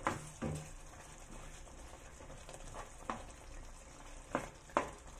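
Spatula stirring chicken green curry as it simmers in a pan of coconut sauce: a steady low sizzle broken by about five sharp knocks of the spatula against the pan, two close together near the end.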